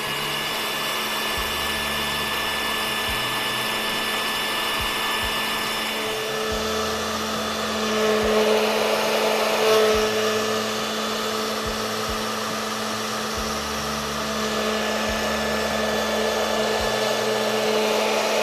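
Hot Tools hair dryer running steadily as a heat source, blowing hot air to shrink heat-shrink tubing over soldered wires. A steady motor whine sits over rushing air, a little louder around the middle.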